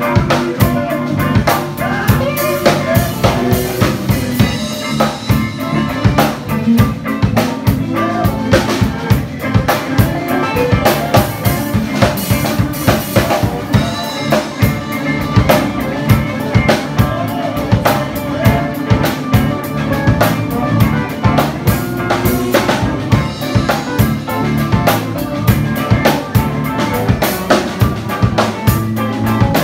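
Live amplified band jamming: a Pearl drum kit played in a steady, busy beat of bass drum, snare and cymbals, under electric guitars.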